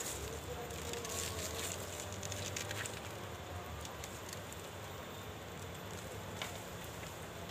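Dry bamboo leaves and stems crackling and rustling as a bamboo pole is worked loose at the base of the clump, with a run of small snaps and clicks in the first three seconds and one more near the end.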